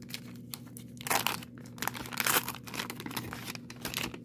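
Wax paper wrapper of a 1990 Donruss baseball card pack being torn open and crinkled by hand. Irregular crackling, loudest about a second in and again around two seconds in.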